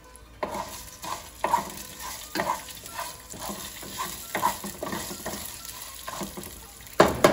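Wooden spatula stirring and scraping mustard seeds, cumin, chana dal, urad dal and dried red chilies sizzling in hot oil in a nonstick pan, about two scraping strokes a second. A sharp knock near the end is the loudest sound.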